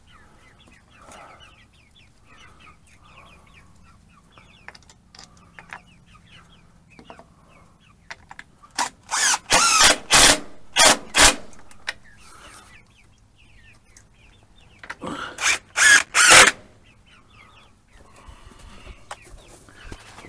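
Young chickens clucking softly, with two clusters of loud short bursts about nine and fifteen seconds in from a cordless drill driving screws into the wooden roost, a longer run followed by quick short pulses.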